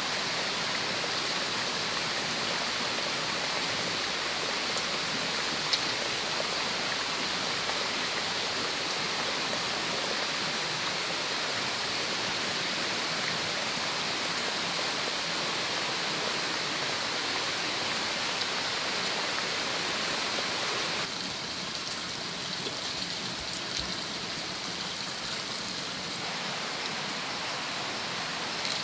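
Steady, even rushing outdoor ambient noise with no distinct events. It thins slightly in the middle range about 21 seconds in.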